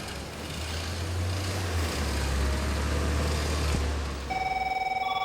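Low engine rumble of a vehicle in city traffic, swelling and then fading. Near the end a telephone starts ringing with a rapid electronic trill.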